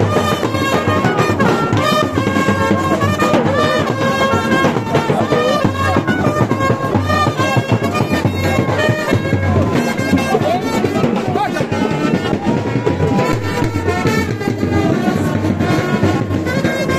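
A brass band playing, trumpets sounding held notes over drums.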